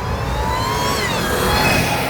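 A car accelerating past at speed, its high engine or drivetrain whine climbing in pitch, then dropping sharply about a second in as it goes by.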